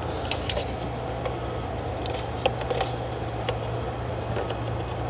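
Scattered light clicks and taps from small hard parts or tools being handled, over a steady low hum.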